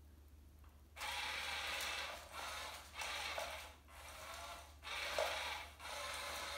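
Battery-powered cat toy's small geared motor whirring as it drives a wand around under its nylon cover, starting about a second in and running in stretches of about a second with brief stops between them.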